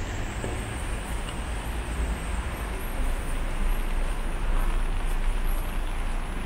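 Steady road traffic on a rain-wet city street: a continuous wash of tyre noise over a low rumble of engines.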